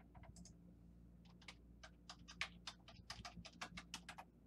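Typing on a computer keyboard: a run of quick, irregular key clicks, sparse at first and coming thicker and faster in the second half.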